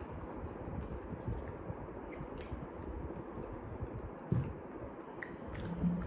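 Close-miked mouth sounds of drinking from a plastic bottle: sips and swallows with small wet mouth clicks, over a steady background hiss. A soft thump about four seconds in as the bottle is set down on the table.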